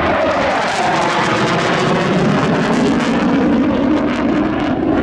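Panavia Tornado's twin RB199 turbofans in afterburner during a fly-by, a loud jet roar whose pitch falls in the first second as it passes and goes away. Crackling near the end.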